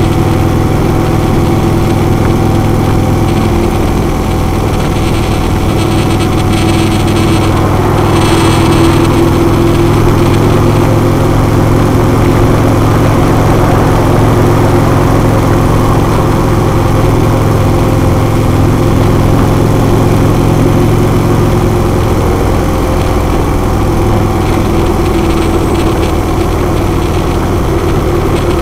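Harley-Davidson Road King's V-twin engine running steadily at highway speed.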